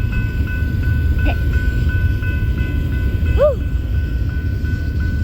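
Train rolling past with a steady low rumble. Above it, a steady high ringing pulses about four to five times a second. About three and a half seconds in, a short squeal rises and falls in pitch.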